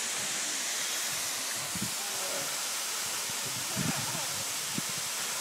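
Steady rushing hiss of a waterfall plunging into a pool. Faint, brief voices come through a few times.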